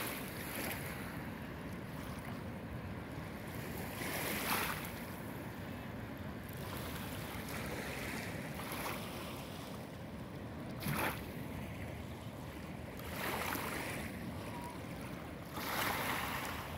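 Small lake waves lapping onto a pebbly shore, a soft hissing splash every few seconds over a steady rush of water and light wind.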